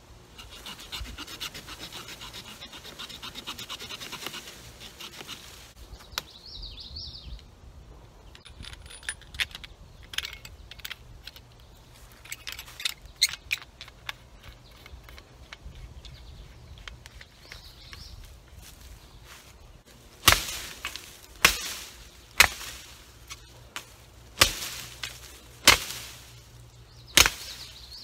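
The short sawback on the spine of a survival-shovel knife sawing into a green sapling in quick strokes for about five seconds, followed by scattered scrapes and knocks. Near the end come about six heavy chops of the steel shovel blade into the trunk, roughly one a second.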